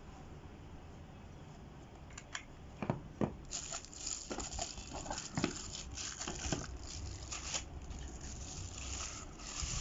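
Irregular rustling, crinkling and scraping with sharp clicks, as of objects or packaging being handled, starting about two seconds in.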